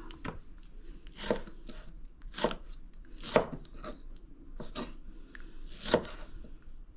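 Kitchen knife chopping tomatoes on a cutting board: sharp, unevenly spaced strokes, roughly one a second.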